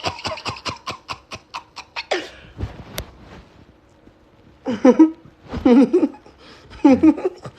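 A person laughing in quick breathy pulses, about five or six a second, fading over the first two seconds. A single sharp click about three seconds in, then short voiced bursts of laughter near the end.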